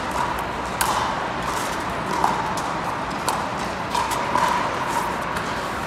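Pickleball paddles striking a hard plastic ball in a rally: hollow pops about a second apart, ringing in a large indoor hall.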